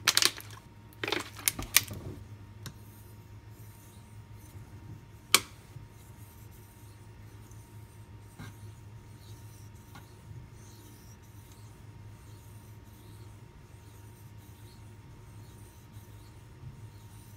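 A few sharp knocks in the first couple of seconds and one more about five seconds in as the knife and stone are handled, then the faint scraping rub of a steel knife blade stroked across a wet water stone, over a steady low hum.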